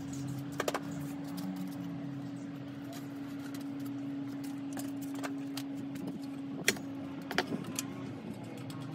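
A few sharp clicks and clanks of bicycle parts being handled as a rear wheel is taken out of the frame, over a steady low hum. The loudest click comes about two-thirds of the way through.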